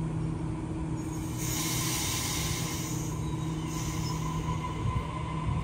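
Double-deck electric passenger train running past the platform, with a steady hum and a steady whine. A high hiss rises for a second or two about a second and a half in, and briefly again near four seconds.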